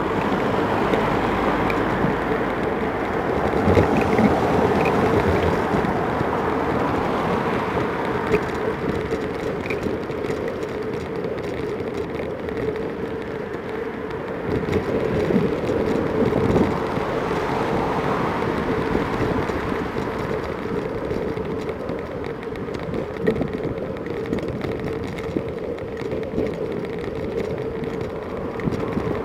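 Noise of a bicycle ride along a town road: a steady hum with rushing air on the microphone, and car traffic passing alongside, louder at moments.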